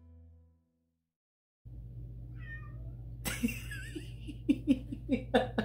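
A domestic cat meowing: a faint short meow about two seconds in, then a louder, wavering meow a second later, followed by a run of short, sharp sounds near the end. A steady electrical hum sits underneath, and the last plucked-string notes of intro music fade out at the very start.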